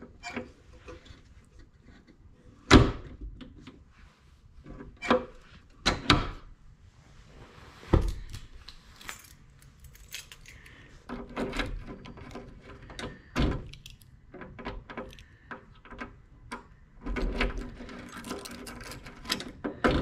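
Push-button latch of a 1966 Ford Galaxie glove box door being worked: a series of sharp clicks and knocks as the door is latched and popped open, with keys jangling near the end.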